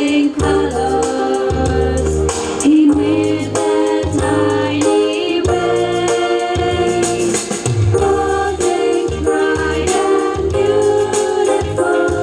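A Christian song: several voices singing together over a band with a steady bass line and light percussion.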